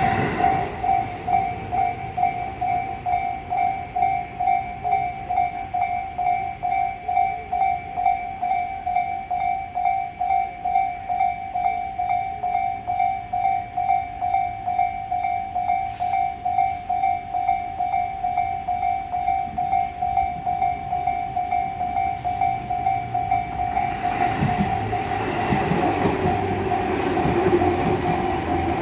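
Japanese railway level crossing warning bell ringing with an even, repeating electronic clang about twice a second. About 24 seconds in, a Tobu Urban Park Line train begins passing over the crossing, its running rumble and wheel clatter building under the bell.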